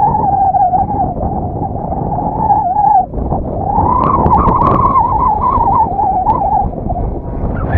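NGH 35cc single-cylinder two-stroke gas engine and 20x8 propeller of a large RC plane in flight, a droning tone that wavers in pitch, drops out briefly about three seconds in, then climbs back up. Heavy wind buffets the microphone underneath.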